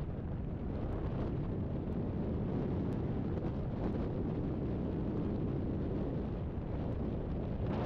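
Wind rushing over an outside-mounted microphone on a moving pickup truck, with steady road and tyre noise from the truck and its boat trailer crossing a plank-decked bridge. A few faint clicks are scattered through it.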